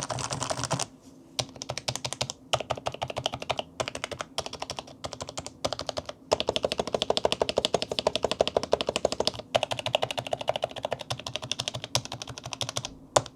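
Fast typing on an HHKB Pro 2 with Topre electrostatic capacitive switches on aged 55 g rubber domes. The keystrokes come in quick runs broken by short pauses, with a few louder single strokes, and one last loud stroke near the end.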